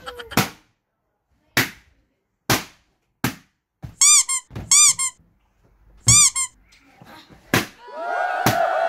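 Latex balloons bursting one after another with sharp pops as they are jabbed with a pencil, about seven in all. In the middle come three short high-pitched squeaks, and near the end a ringing tone sets in.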